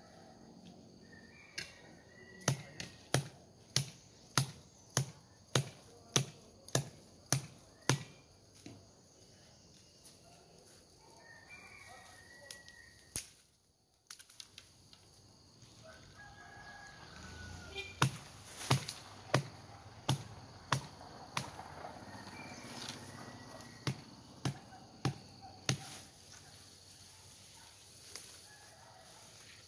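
Repeated sharp chopping strokes of a blade into bamboo, about two a second, in two runs with a pause of several seconds between them.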